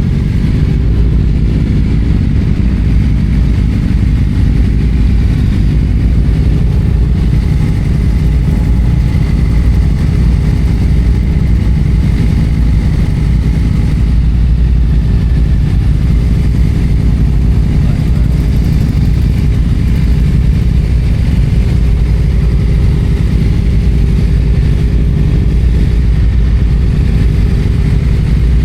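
Yamaha FZ-07's 689 cc parallel-twin engine running steadily under way, heard from the rider's position with no big revs or shifts standing out.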